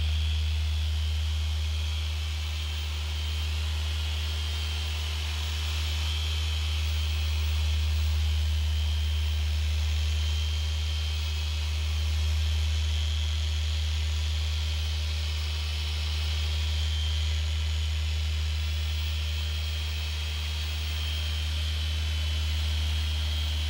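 Electric polisher with a foam pad running steadily, buffing polishing compound on a sealed concrete countertop: a low hum with a steady higher whine, rising and falling slightly in level.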